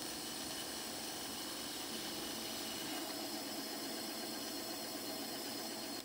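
Benchtop bandsaw running steadily, its blade cutting through a thin-finned metal fin-stack heatsink.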